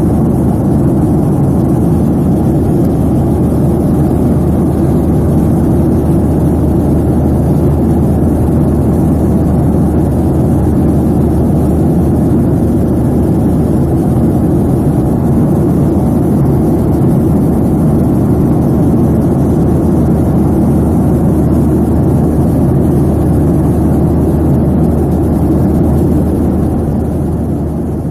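Steady cabin noise of a Boeing 737 jet airliner in cruise flight: a low, even rush of engine and airflow noise that does not change.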